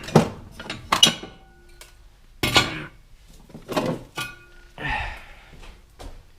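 Metal jack stands clanking as they are set in place: about six sharp metallic knocks, a few of them leaving a brief ring.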